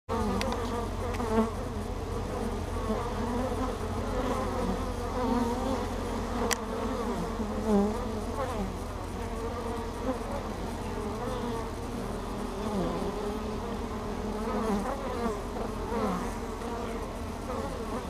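Honey bees buzzing at the hive entrance, their pitch wavering and swelling as individual bees fly close past, over a steady low hum. A single sharp tick sounds about six and a half seconds in.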